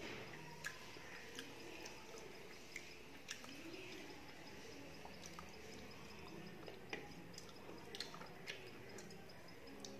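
Faint eating sounds: a person chewing rice and fish curry eaten by hand, with irregular small wet mouth clicks and smacks.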